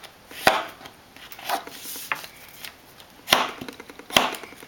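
Folded paper creased firmly with a hard plastic object on a wooden desktop: a series of about six short, sharp scraping strokes, each starting with a knock.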